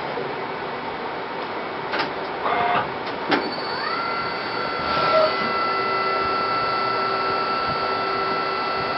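A machine runs with a steady hissing noise. After two sharp clicks, a motor whine rises in pitch a little under four seconds in, then holds steady.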